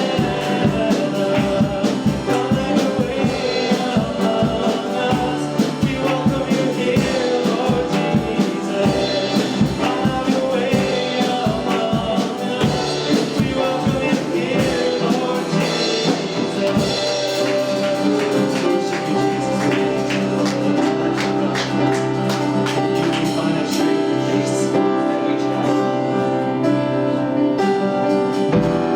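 Worship song with singing and instrumental backing: a steady beat for about the first half, then the beat drops away, leaving sustained held chords.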